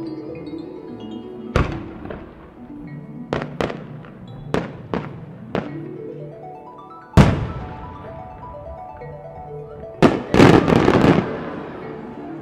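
Aerial fireworks shells bursting: single sharp bangs every second or so, the loudest about seven seconds in, then a rapid cluster of many small bursts about ten seconds in. Background music with sustained tones runs underneath.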